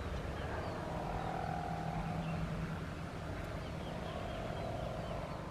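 Outdoor ambience: a steady low rumble with a faint held hum, and short high chirps of small birds now and then.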